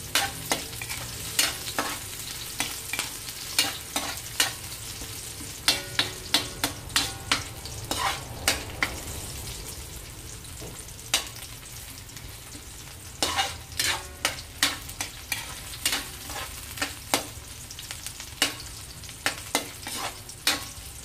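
Metal spatula scraping and clacking against a metal wok as garlic, ginger and onion sauté in hot oil, with a steady sizzle underneath. The strikes come in quick runs, thinning out for a few seconds near the middle.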